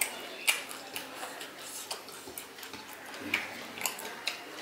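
Close-miked eating sounds: a run of irregular sharp clicks and smacks, about two a second, from a person chewing and eating a Bengali rice-and-fish meal.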